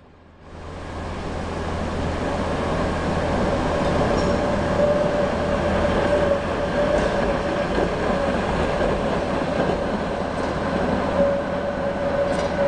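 Steady vehicle noise at a bus station: a low engine hum with a sustained, slightly wavering whine running through it, fading in over the first second.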